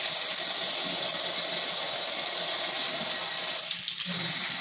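Shower spray running steadily onto a tiled shower floor, with a brief change in the flow about four seconds in.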